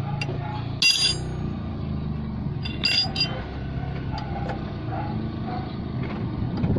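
Steel combination wrench clinking against a tie rod end's nut as it is worked loose, with two bright ringing metal clinks, about a second in and about three seconds in, and a few lighter ticks. A steady low hum runs underneath.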